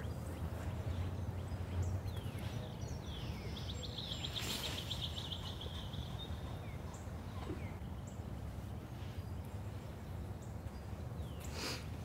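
A fishing rod cast out over the water: a swish and the reel spool buzzing briefly as the line pays out, about four seconds in. Under it runs a low wind rumble, with scattered bird chirps.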